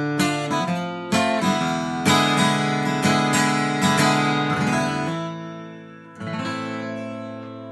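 Acoustic guitar strummed through the closing chords of a song. About six seconds in, a last chord is struck and left to ring out and fade.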